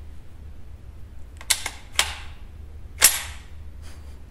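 The action of a Walther Colt M4 .22 LR carbine being worked by hand: about four sharp metallic clacks of the charging handle and bolt, the loudest about three seconds in, as a round is chambered in a rifle that is feeding badly.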